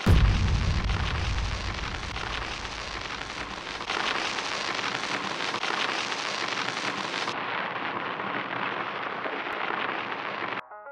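Dense crackling hiss of a metal 3D printer's laser melting titanium powder and throwing sparks, opening with a deep thump and then running steadily. It cuts off just before the end, when music comes in.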